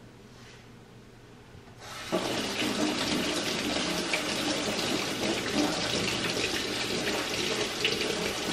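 Tap water running into a sink, turned on about two seconds in and shut off abruptly near the end.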